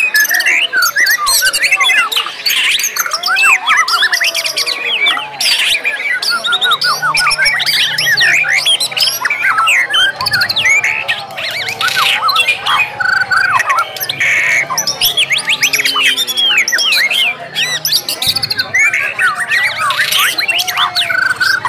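Several white-rumped shamas (murai batu) singing at once: a dense, unbroken stream of fast whistles, chirps, trills and sharp rapid 'shooting' phrases overlapping one another.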